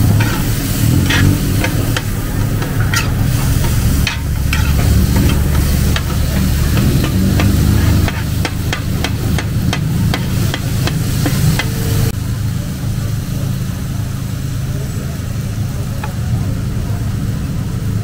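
Two metal spatulas scraping and clinking on a large flat steel pan as Pad Thai noodles are stir-fried, with a frying sizzle. The quick scraping strokes come thickest shortly before they thin out about twelve seconds in, over a steady low rumble.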